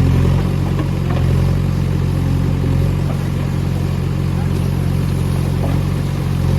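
JCB 3DX backhoe loader's diesel engine running steadily under working throttle.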